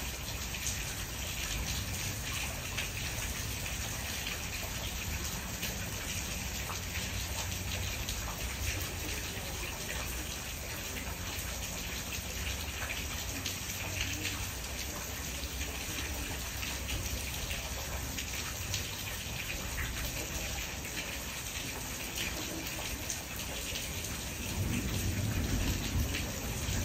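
Steady summer rain falling, a dense patter of drops over a low rumble; a deeper rumble swells up about two seconds before the end.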